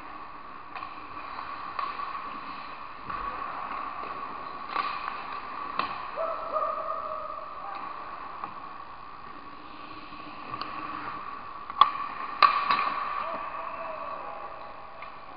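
Ice hockey play heard from the goal net: a few sharp clacks of sticks and puck, the two loudest about twelve seconds in, over a steady rink hum and faint shouts.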